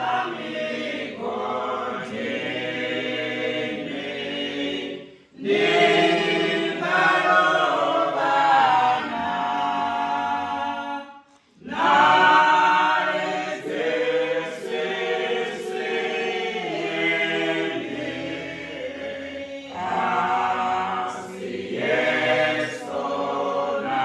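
Church choir singing a hymn without accompaniment, several voices in harmony. The singing comes in long phrases, with short breaks about five and eleven seconds in.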